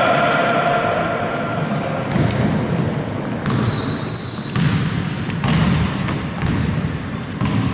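Indoor basketball game play: a ball bouncing on the court and sneakers squeaking in short high squeals several times, echoing in the hall.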